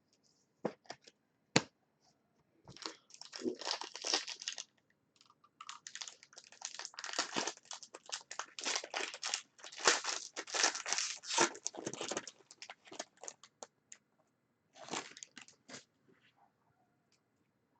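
Trading-card pack wrappers being torn open and crinkled, with quick rustling strokes that are busiest through the middle and come back briefly near the end.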